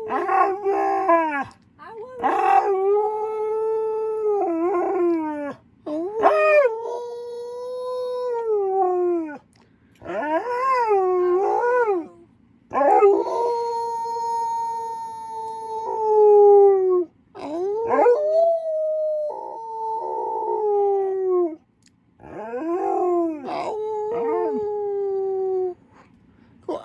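Wolfdog howling: a series of long howls, each rising to a held note and falling off at the end, with short breaks between.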